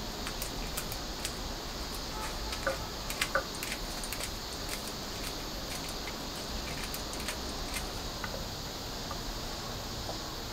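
Kitchen scissors snipping dried red chili peppers into thin strips: a run of small, crisp, irregular cuts, a few louder ones about three seconds in, thinning out near the end, over a steady background hiss.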